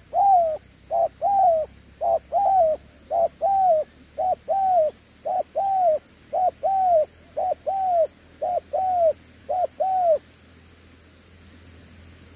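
Spotted dove cooing: a steady run of paired notes, a short coo followed by a longer arching one, repeated about once a second, stopping about ten seconds in.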